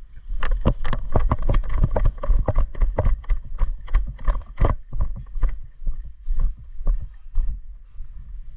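Quick footsteps of a player running, about three or four strides a second, with gear and the body-worn camera jostling, over a low rumble; the steps thin out and grow quieter near the end.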